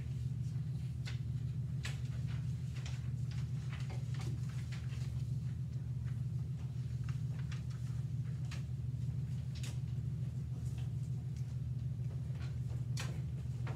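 Quiet classroom room tone: a steady low hum with scattered faint clicks and taps from students working at their desks.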